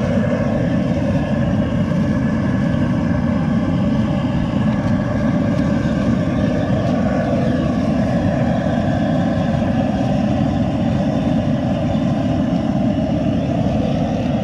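Propane jet burner under a crawfish boil pot, running with a steady, loud, low rush.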